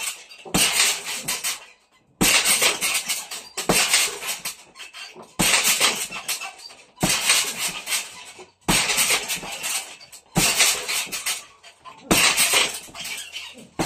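Punches landing on a hanging heavy bag in quick combinations, a new flurry starting about every second and a half, with the bag's hanging chains rattling after the hits.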